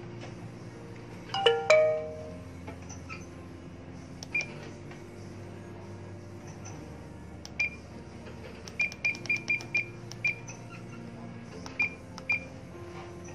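Key-press beeps from a Furuno GP-32 marine GPS as its buttons are pressed to enter a route: single short high beeps now and then, and a quick run of about seven beeps around nine seconds in. Under them runs soft background music of held chords, with a louder ringing tone about a second and a half in.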